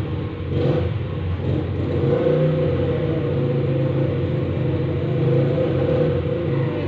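An engine running with a steady low hum, a little louder from about two seconds in.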